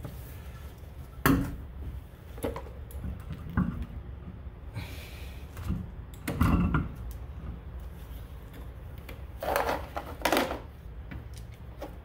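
Steel wheel being fitted back onto a car's front hub by hand: a few scattered metal knocks and scrapes as it is worked onto the studs, over a low steady rumble.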